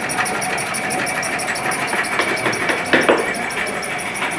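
A motor running steadily in a woodworking shop, overlaid by quick repeated taps of about four a second, with a louder knock about three seconds in.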